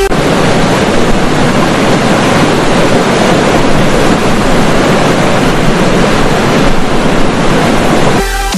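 Steady, loud roar of water pouring from the Baihetan Dam's flood-discharge outlets into the gorge below. Electronic music comes back near the end.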